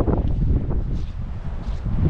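Strong wind buffeting the microphone, a loud low rumble that surges in gusts.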